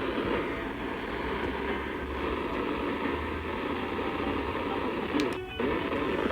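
NOAA Weather Radio receiver hissing with steady static from a weak broadcast signal, with a brief dropout about five and a half seconds in.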